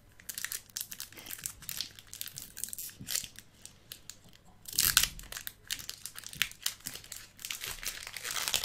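Foil wrapper of a Pokémon trading-card booster pack crinkling and tearing as it is opened, in quick irregular bursts with the loudest rip about five seconds in.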